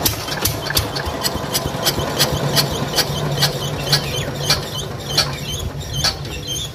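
The 10 HP water-cooled diesel engine of a 7.5 kVA generator turning over as it is hand-cranked to start, with a steady low hum and a sharp knock about four times a second.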